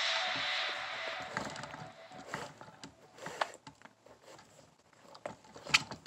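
Background music fading out over the first two seconds. Then soft scattered rustling and a few sharp ticks as a shoelace is pulled out through the eyelets of an Air Jordan 7 Retro sneaker by gloved hands.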